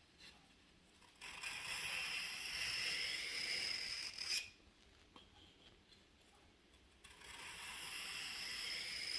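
Knife blade drawn slowly along a sharpening stone with light, even pressure: two long scraping strokes of about three seconds each, the second starting about seven seconds in, grinding the edge's secondary bevel.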